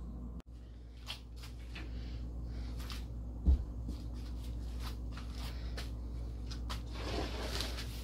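Handling noise as a camera is picked up and turned around: scattered light clicks and rustles, a dull thump about three and a half seconds in, and a longer rustle near the end, over a steady low hum.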